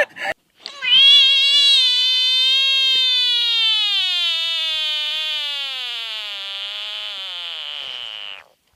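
A single long, high, wavering vocal call, held for about seven and a half seconds and slowly sinking in pitch before it cuts off.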